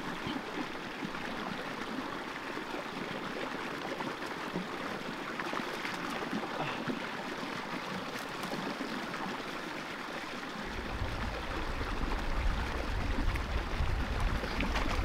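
A small creek running steadily in a shallow, steady rush of water. About ten seconds in, a low rumble joins it.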